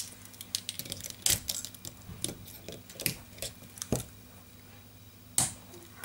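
Metal clicks and scrapes from a Victorinox SwissChamp multi-tool Swiss army knife as a stiff tool is worked out of it with a separate tool. The clicks come irregularly, and a few are louder.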